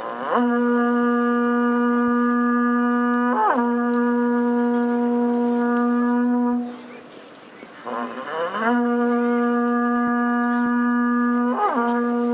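A horagai, the Japanese conch-shell trumpet, blown in two long steady blasts with a short break between them. Each blast dips briefly in pitch about halfway through and then steadies again.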